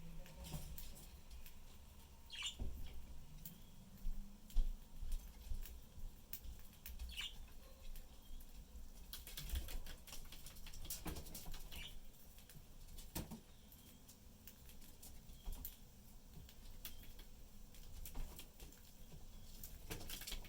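Budgerigars pecking and nibbling at food: a run of many small clicks and taps, with a few short high chirps in the first half.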